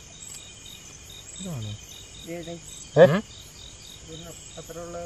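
Crickets chirping steadily in a regular pulsing trill, with a few short vocal sounds from people, the loudest about three seconds in.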